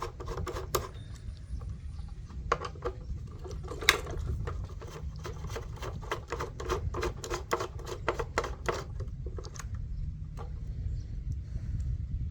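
Screwdriver backing the axle screws out of a Polaris pool cleaner's plastic body: a run of quick clicks and ticks, about four a second, with one sharper click about four seconds in, over a steady low hum.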